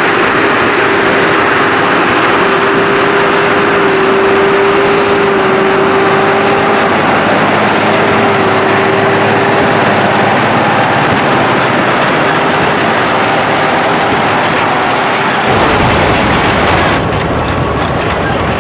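Fendt Favorit 916 tractor pulling a Krone BigPack 1270 XC big square baler at work: a loud, steady machine drone with a whine held on one pitch. Near the end the sound shifts abruptly to a deeper rumble.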